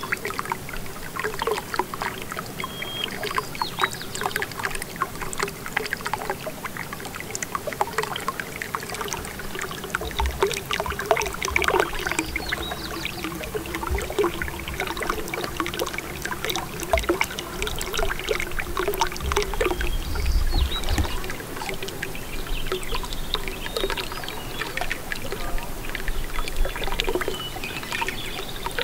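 Water lapping and trickling with many small irregular splashes, and brief low rumbles now and then.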